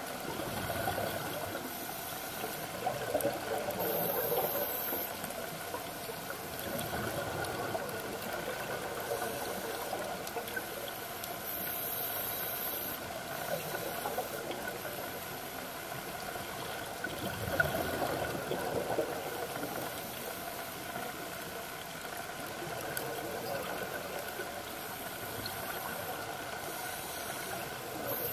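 Underwater sound of scuba breathing: surges of exhaled bubbles from a regulator every few seconds, with short hisses of inhalation between them, over a faint steady hum.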